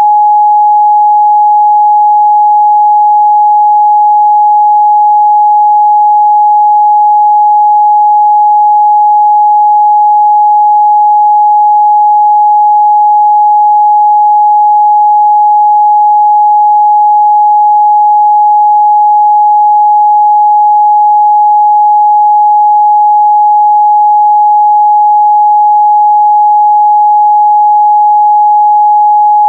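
A pure 838 Hz sine-wave test tone, one steady pitch held at a constant loud level with no other sound.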